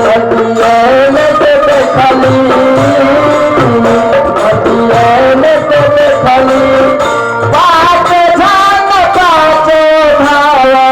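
Nirgun folk devotional music: sustained melodic instruments over steady hand-drum percussion. About three-quarters of the way through, a wavering melodic line comes in over the accompaniment.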